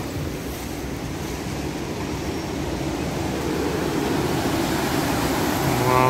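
Whitewater stream rushing over boulders below a bridge: a steady rush of water noise that grows a little louder.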